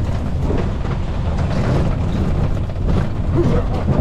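A vehicle running along a rough track, a steady low rumble of motor and road noise.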